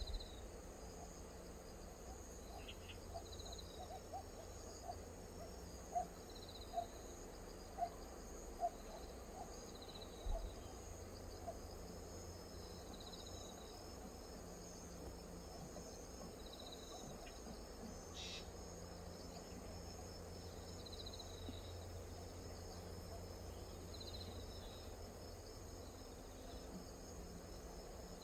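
Insects chirping: a steady high trill with a short chirp repeating every second or two. In the first ten seconds there is also a run of short, low-pitched calls.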